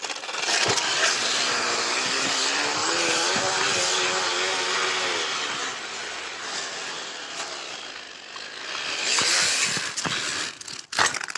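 Plastic cup fitted against a bicycle's rear wheel, struck by the turning wheel into a fast buzzing rattle that sounds like a motorbike engine. The buzz rises in pitch as the bike picks up speed, then falls away, and swells again briefly near the end.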